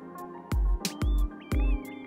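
Background electronic music with a deep bass beat about twice a second, crisp hi-hat ticks and a wavering synth melody.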